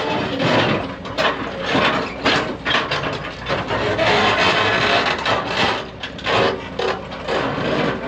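Excavator digging out the bottom of a foundation trench: the engine running under load with irregular knocks and scraping from the bucket working the soil.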